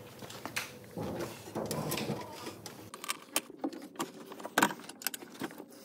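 Hands handling plastic trim covers and clips around a hybrid battery pack: scattered small clicks, knocks and rubbing, with one louder knock about two-thirds of the way through.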